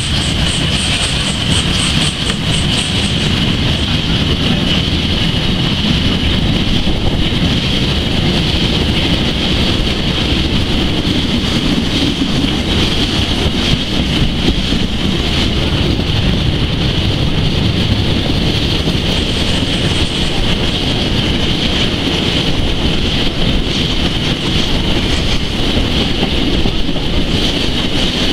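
Historic steam-hauled train running steadily along the track, heard from an open carriage window, with wind rushing over the microphone.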